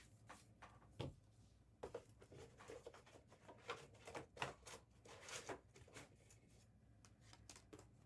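Faint handling noise of trading cards and plastic card holders on a table: soft rustles and light taps, with a sharper knock about a second in, over a low steady hum.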